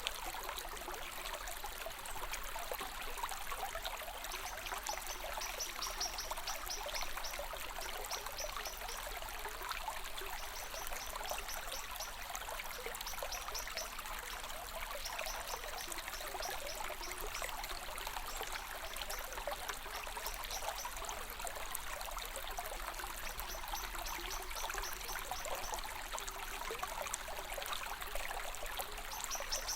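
Running water, flowing steadily with an even rush. A rapid high-pitched trill comes and goes in bouts of a few seconds, about five times.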